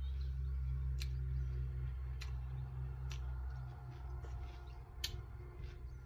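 Eating utensils giving a few sharp clicks against a dish, the loudest about five seconds in, over a steady low rumble.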